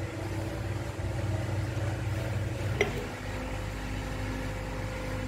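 Steady low mechanical hum with a few steady tones above it, and one light click about three seconds in.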